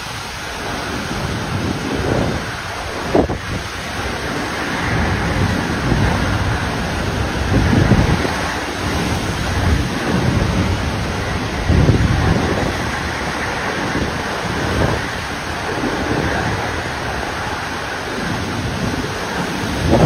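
Typhoon wind and heavy rain: a continuous rush of wind-driven rain with gusts surging every few seconds, the strongest buffeting the microphone with low rumbles. A brief sharp crack about three seconds in.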